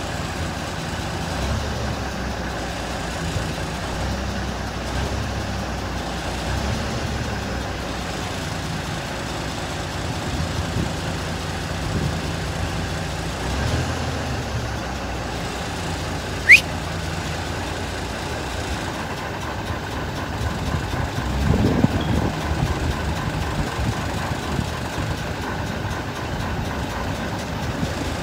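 Grapple truck's diesel engine running steadily to drive the hydraulics as its dump body tips up and settles back down. A brief sharp rising squeak sounds about halfway through, and the rumble grows louder for a few seconds around three-quarters of the way.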